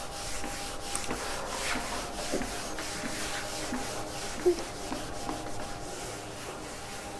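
Writing on a board by hand: faint scratchy rubbing in short strokes.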